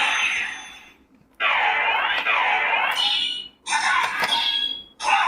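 Electronic sound effects played by a Kamen Rider OOO CSM belt toy: bursts of bright, sweeping alarm-like tones, starting and stopping three times with short gaps between them.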